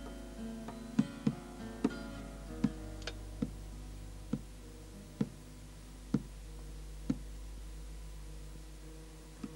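Music from a plucked string instrument playing slow single notes. A few notes come close together at first, then they are spaced about a second apart, over a steady low hum.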